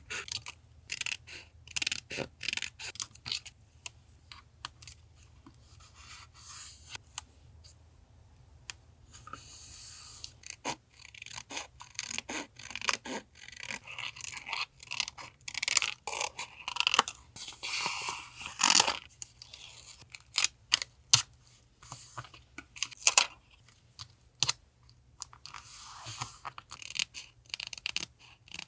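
Paper being cut, torn and handled for a journal collage: a run of small crisp snips, taps and crinkles, with longer stretches of rustling about a third of the way in and again just past halfway. A faint steady refrigerator hum runs underneath.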